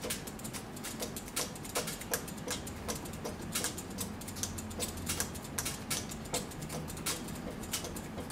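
A bowstring serving jig being spun round and round the string as serving thread is wound on, its spool and frame clicking in a quick, irregular run of ticks.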